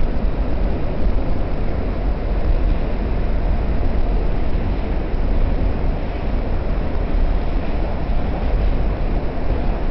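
R68 subway car running at speed through a tunnel station, heard from inside the car: a steady, loud low running noise with no breaks.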